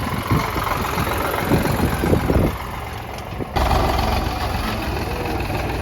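Diesel engine of heavy earthmoving machinery running, with irregular low thumps over the first two and a half seconds. A little past halfway the sound changes abruptly to a steadier, louder engine note.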